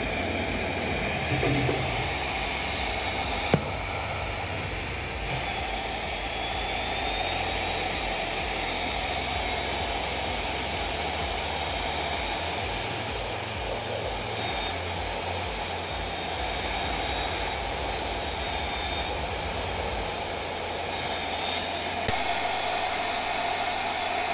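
AVC BA133B12U 12-volt centrifugal blower fan running flat out: a steady rush of air with a faint high whine over it. One sharp click about three and a half seconds in.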